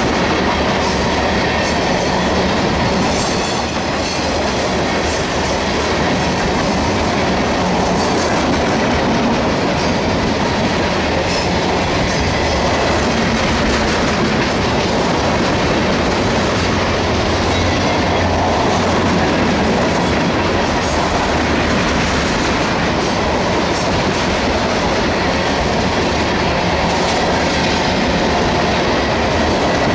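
Railroad tank cars of a freight train rolling past close by: a loud, steady rumble with the clickety-clack of steel wheels over the rail joints.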